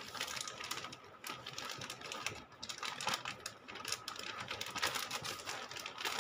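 Clear plastic packaging bag crinkling and rustling as folded fabric is pulled out of it by hand, a run of irregular small crackles.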